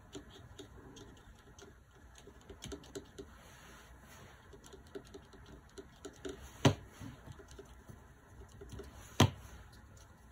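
Paintbrush dabbing water onto watercolor paper: faint, irregular soft taps, with two sharper clicks a couple of seconds apart in the second half.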